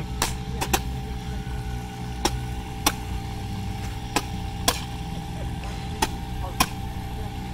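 Roman candle firing from a hand-held mount, each shot a sharp pop, about nine at uneven intervals, over a steady low hum.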